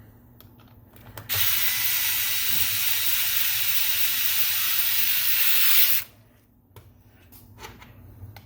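Power driver running steadily for about four and a half seconds, driving one of the deadbolt's mounting screws, with a few small handling clicks before and after.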